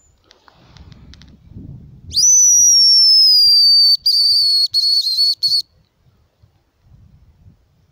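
Homemade hazel grouse call blown close by, imitating the grouse's song: one thin, high whistle about two seconds in that jumps up sharply and slides slowly down, ending in a few short broken notes. Soft rustling comes before it.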